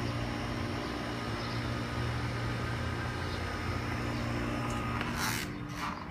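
Outdoor air-conditioning condenser unit running: a steady low hum with fan noise. About five seconds in the hum falls away behind a short rush of noise and a few sharp knocks.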